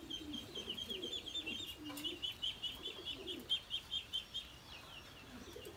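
Caged spotted doves giving low coos, against a fast run of high, short chirps from another bird that stops about four and a half seconds in.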